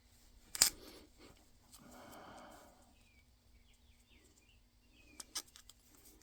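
A sharp click, then a short rustle and two more quick clicks, as hand tools work the rubber inner-tube gasket, with faint bird chirps behind.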